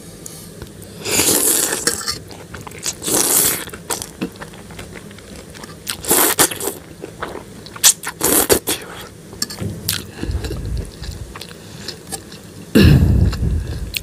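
A person slurping soupy Maggi instant noodles from a metal fork and chewing, with the fork scraping the bowl: about five separate slurps, the loudest near the end.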